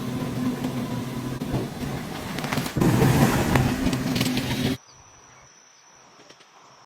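A car engine running with a steady hum, getting louder a little under three seconds in, then cut off abruptly about five seconds in. A faint high steady tone follows.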